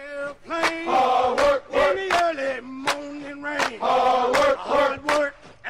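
A group of men chanting a military marching cadence in short sung phrases with held notes.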